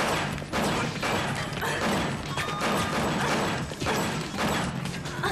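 Fight-scene sound effects: a series of loud crashes and impacts, roughly one a second, over a dramatic music score.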